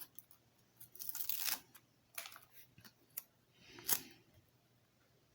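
A LEGO sticker being peeled off its sheet and pressed on: several short peeling and rustling scrapes, with a light click about three seconds in.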